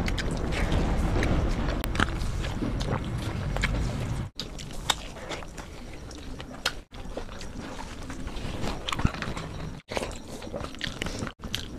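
Close-up eating sounds of two people biting and chewing fried snacks and khichuri eaten by hand, with many small clicks and crunches. A steady low rumble runs under the first four seconds, and the sound breaks off abruptly several times.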